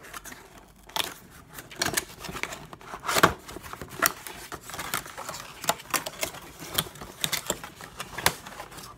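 Cardboard packaging handled and pulled open by hand: an irregular run of sharp clicks, scrapes and rustles as the box flaps are worked open and a moulded pulp insert is pulled out. The loudest click comes about three seconds in.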